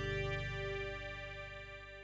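Background music fading out, its held notes dying away.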